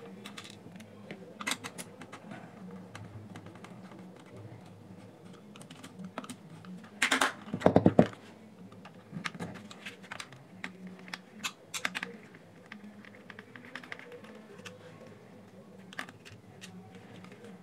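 Small hand screwdriver turning screws out of a plastic speaker housing: light scattered clicks and scrapes of the tool, with a louder clatter of knocks about seven seconds in.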